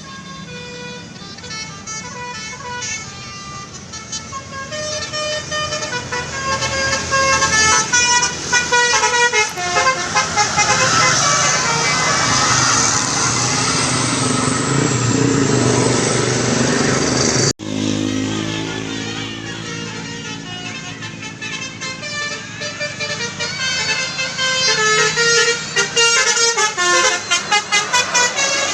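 Tourist buses' telolet basuri multi-tone horns playing quick melodic tunes of short stepped notes, one run after another, over bus engines running. The sound cuts out abruptly about two-thirds of the way through and resumes at once.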